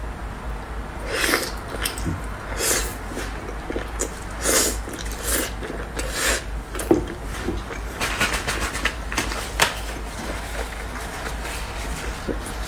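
Close-miked eating sounds: short, wet bursts of chewing and mouth noise at irregular intervals, about one every second or so, over a steady low hum.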